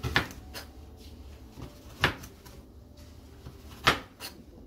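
Chef's knife slicing green onions on a plastic cutting board: sharp knocks of the blade striking the board, about five of them, unevenly spaced.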